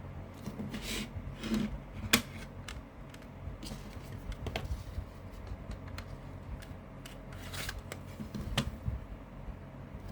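Handling of a plastic CD case: scattered clicks and snaps with a few short rustles. The sharpest click comes about two seconds in, and another comes near the end.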